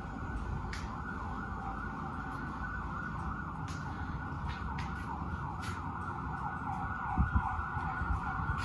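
Emergency vehicle siren yelping, its pitch sweeping rapidly up and down, steady throughout. A few sharp clicks and a couple of low knocks about seven seconds in.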